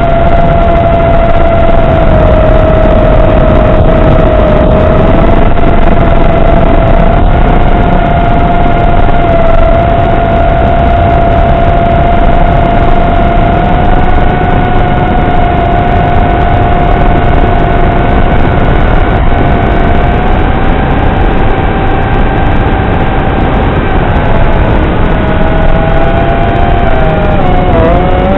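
FPV quadcopter's brushless motors and propellers whining in flight: one steady tone over a rushing noise. The pitch creeps up a little later on and dips briefly near the end.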